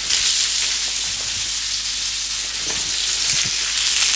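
Kidneys sizzling in a hot stainless pan: a steady frying hiss, with a couple of soft knocks about three seconds in.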